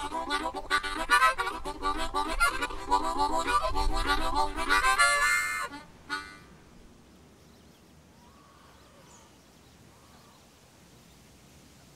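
Harmonica playing rhythmic chords that end in a rising run and stop abruptly about six seconds in, leaving only a faint background hiss.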